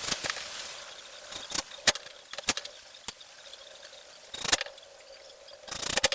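Sharp clicks and knocks of metal hinges and plywood boards being handled and positioned, a few separate strikes spread out, over a faint steady hiss.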